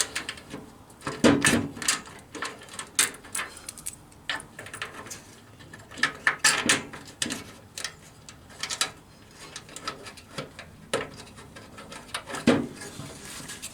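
Irregular clinks, knocks and scrapes of hands working a bolt into the radiator mounting, trying to line it up and start its thread.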